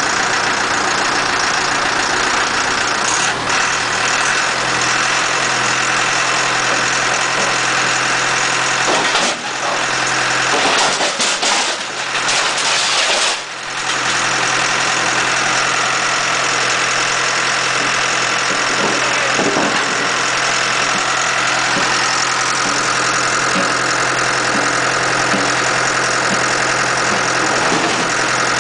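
Horizontal mobile scrap-metal baler running with a steady engine-and-hydraulic drone and a constant low hum. About ten seconds in, a few seconds of rougher, uneven noise break in before the steady drone resumes.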